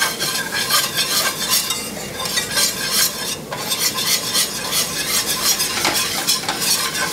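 Wire whisk beating quickly against a stainless steel skillet in quick scraping strokes, working beef broth into a sizzling flour-and-drippings roux for gravy.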